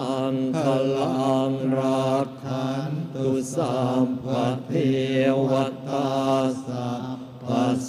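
Buddhist monks chanting together in unison: a steady, sung recitation held on one low note, with short pauses for breath about two seconds in and near the end.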